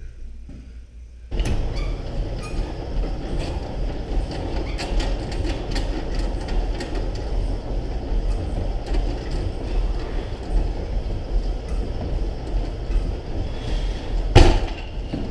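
Seated cable row machine in use: a continuous rumbling clatter from its pulleys, cable and sliding weight stack, with scattered clicks. It starts suddenly about a second and a half in, and there is one loud clank near the end.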